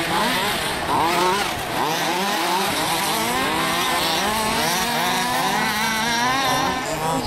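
Several large-scale (1:5) off-road RC cars racing, their small two-stroke petrol engines buzzing and revving together, with many overlapping pitches rising and falling as they throttle up and back off.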